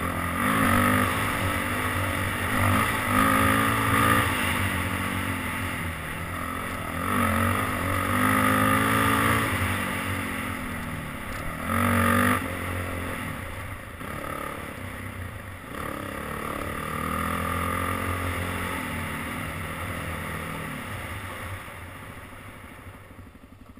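ATV engine being ridden hard along a dirt trail, revving up and falling back again and again, with wind rushing over the helmet-mounted microphone. The engine note dies down over the last few seconds as the quad slows.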